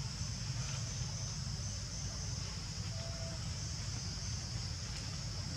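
Steady high-pitched insect chorus over a constant low rumble, with a short faint tone about three seconds in.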